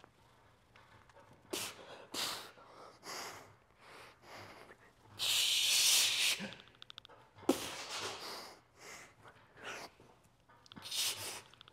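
A man's forceful, effortful exhales during a set of cable pulldowns, coming in short bursts, with one long, loud hissing breath about five seconds in and a sharp knock a couple of seconds later.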